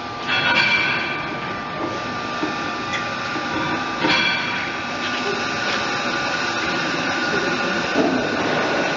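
The River Don Engine, a 1905 Davy Brothers 12,000 hp reversing steam engine, running. Hissing bursts of steam come about a second in and again about four seconds in, over a continuous mechanical noise that grows slightly steadier and louder.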